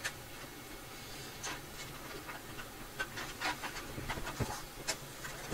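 Scattered light clicks and rubs of small plastic wire plugs and a circuit board being handled, as connectors are pulled from a 3D printer's main board. A faint steady hum runs underneath.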